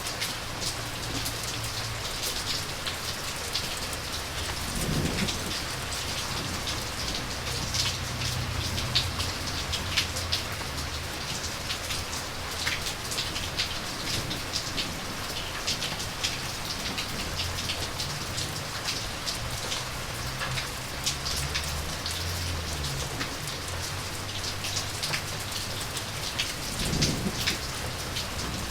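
Steady rain falling, with many close drops landing as sharp ticks. Low rumbles of distant thunder come and go underneath.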